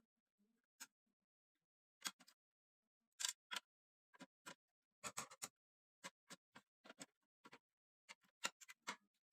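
Irregular sharp clicks and taps, a few a second and some in quick clusters, from small tools and parts being handled during repair work on a vintage radio cassette player.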